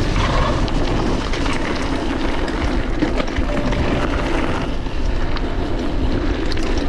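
Mountain bike rolling fast down a gravel track: a steady rush of tyre noise on the loose surface, with many small clicks and rattles from the stones and the bike.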